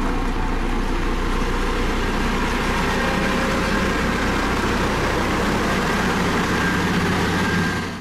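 Dynapac CC522 tandem-drum asphalt roller running steadily as it rolls over fresh asphalt, its engine giving an even, unchanging hum.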